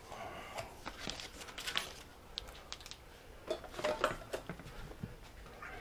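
Faint scattered clicks, taps and light clatter of cat food bowls and dishes being handled and set down.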